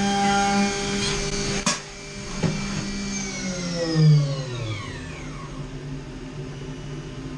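Haas CNC milling machine spindle running with a steady whine as it mills aluminium, a sharp click about a second and a half in, then the spindle spins down, its whine falling in pitch over about two seconds and fading to a low hum.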